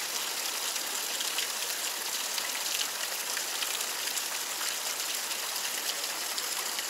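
Steady rushing of a flowing stream, with faint scattered ticks over it.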